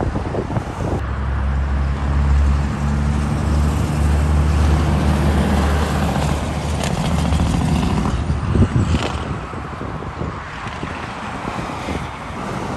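Diesel semi-truck engine passing on the road, a steady low drone that starts about a second in and fades after about eight seconds, followed by a brief whoosh of passing traffic and tyre noise.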